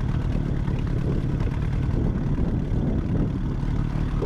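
Outboard motor of an inflatable boat running steadily at trolling speed, an even low drone.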